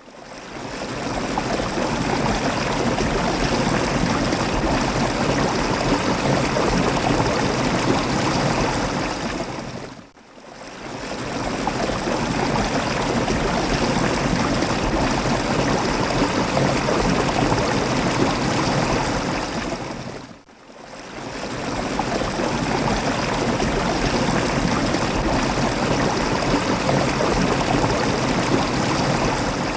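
Waterfall water rushing and splashing in a steady, dense wash of sound. It fades down and back up briefly twice, about ten and twenty seconds in.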